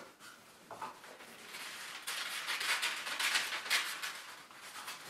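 Newspaper rustling and crinkling as it is wound onto a cardboard toilet-roll tube: rough, crackly paper noise starting about a second and a half in and easing off near the end.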